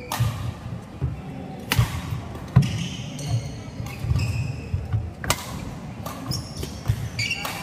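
A badminton rally: racket strings striking the shuttlecock with several sharp cracks a second or more apart. Between them come players' footsteps thudding on the wooden court and short squeaks of shoe soles.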